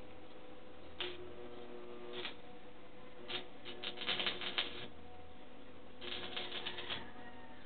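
Stick (arc) welding on a steel window grill frame: the arc crackles in four short spells of tack welds, the longest about a second and a half, with a low steady hum under each.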